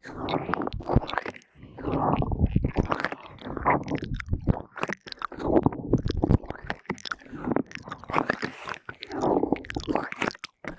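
ASMR mouth sounds close to a binaural microphone: wet clicks, smacks and tongue sounds in dense clusters, broken by short pauses every second or two.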